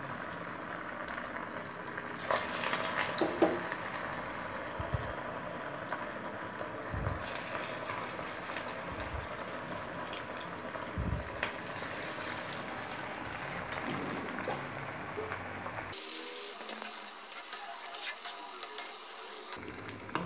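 Hot oil in a kadai sizzling and crackling steadily as mutton keema vadas deep-fry, with a few louder spits about two to four seconds in.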